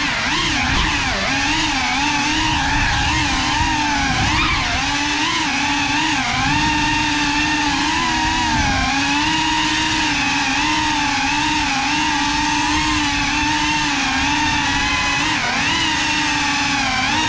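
GEPRC Cinelog 35 cinewhoop drone's motors and ducted propellers whining steadily, the pitch wavering up and down as the throttle changes.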